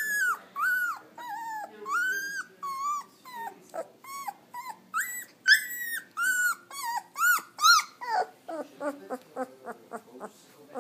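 Three-week-old Alaskan Malamute puppy whining in a string of high-pitched cries that rise and fall, about two a second. Near the end the cries turn shorter, quicker and fainter.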